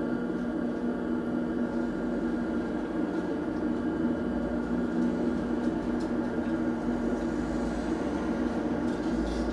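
A steady hum made of a few fixed low tones, like an appliance or fan running, with nothing else standing out.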